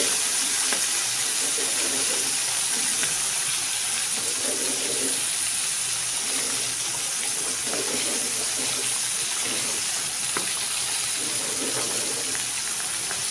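Whole mullet frying in a pan of hot oil: a steady sizzling hiss with an occasional small pop.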